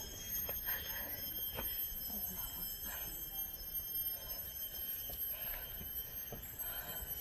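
Steady, high-pitched drone of forest insects, several held tones at once, with scattered soft knocks of footsteps on the trail.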